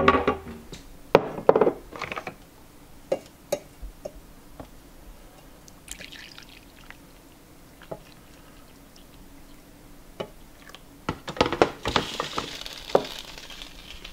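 A string of sharp knocks and clinks of ceramic mugs and a wooden cupboard door, then coffee poured from a glass carafe into a ceramic mug with a splashing pour near the end.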